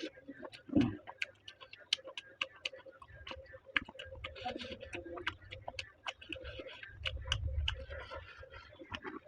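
Close-miked chewing and eating: a quick, irregular run of sharp wet mouth clicks and crunches, over a low rumble that swells through the middle.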